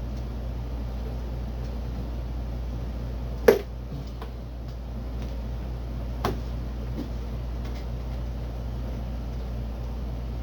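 Two sharp knocks of hand work on a car door, a loud one about three and a half seconds in and a lighter one near six seconds, over a steady low hum.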